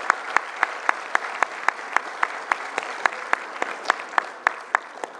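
Audience applauding, with one person's close, sharp claps standing out at about three to four a second. The applause fades near the end.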